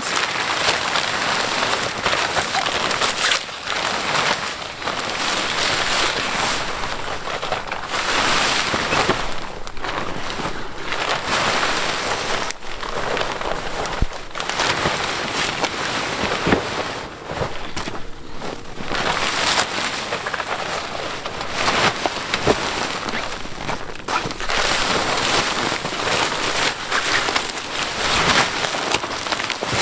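Fabric of a summer gazebo screen tent rustling and flapping as it is unfolded and pulled up into shape, in uneven stretches with short pauses.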